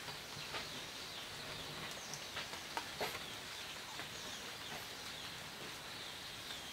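Quiet rural ambience with a few faint, short bird chirps and scattered soft clicks.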